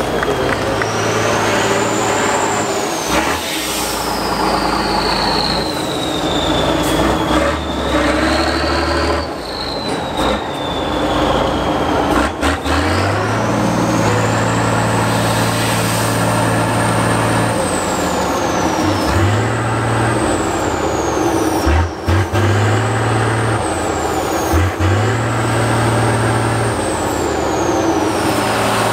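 Tatra six-wheel-drive trial truck's diesel engine revving hard in repeated bursts as it climbs, with a high whine rising and falling along with the revs.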